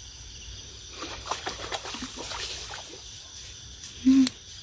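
Dry twigs and leaves crackling and rustling in dense dry brush, over a steady chirring of night insects. About four seconds in comes a brief, loud, pitched voiced sound.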